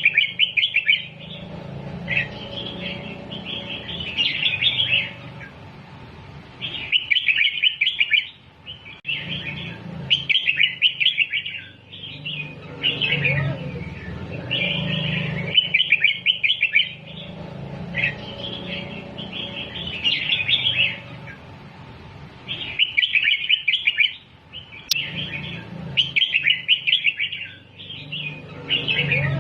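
Red-whiskered bulbul singing: quick chattering phrases repeated every few seconds with short pauses between, the kind of song recording played to teach young bulbuls.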